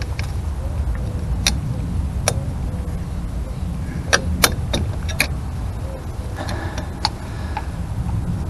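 A screwdriver and a small brake-shoe coil spring clicking against the shoe and back plate of a Morris Minor 1000's rear drum brake as the spring is levered into place: about seven sharp metallic clicks, the loudest a little over four seconds in. A steady low rumble runs underneath.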